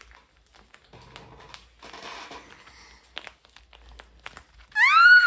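Quiet crinkling and rustling of a homemade paper squishy, paper and tape over cotton, being handled, with a few light clicks. Near the end comes a loud, high squeal of delight that rises and falls in pitch.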